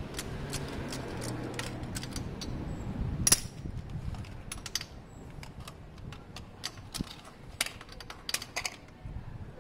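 Scattered light metallic clicks and taps as a compression tester's brass hose fitting is handled and screwed by hand into the spark plug hole of a Honda CB250's cylinder head. One sharp click about a third of the way in is the loudest.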